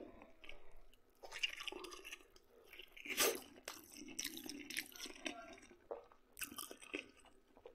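A person chewing and eating close to the microphone, with wet mouth sounds and short crunchy bits, the loudest about three seconds in, as homemade pork-head sausage is eaten.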